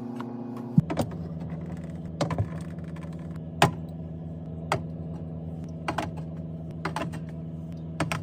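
Light clicks and knocks of drink bottles and cans being set down and stacked, one about every second, over a low steady drone.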